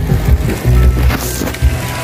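Background music with a heavy bass line.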